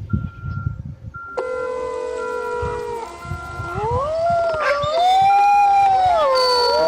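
A vehicle's reverse alarm beeps steadily about once a second. A little over a second in, a pack of canines joins it, howling in several overlapping voices that rise and fall in pitch and grow louder in the second half.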